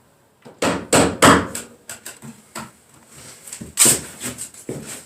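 A run of irregular sharp knocks and bangs, the loudest cluster about a second in, then scattered single knocks.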